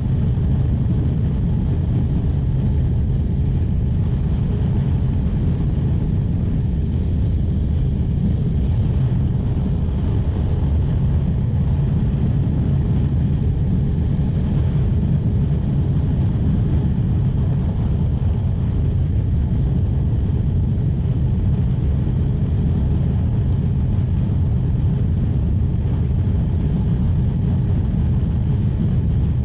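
1984 Honda VF500F Interceptor's 498cc V4 engine running at steady freeway speed, about 85 mph, its drone mixed with wind rush on the microphone. The sound holds steady, with no revving or gear changes.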